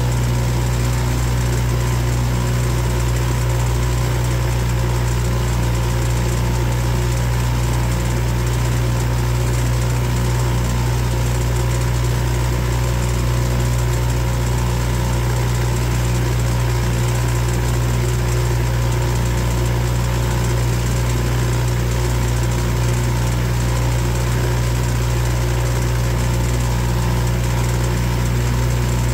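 Boat motor running at a steady speed, an even hum that does not change.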